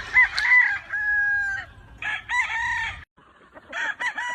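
Gamefowl roosters crowing: a crow with a long drawn-out final note in the first second and a half, another crow about two seconds in, and another starting near the end.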